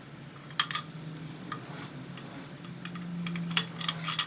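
Irregular light metallic clicks and clinks of hand tools and engine parts being worked by hand, with a cluster of them near the end, over a low steady hum.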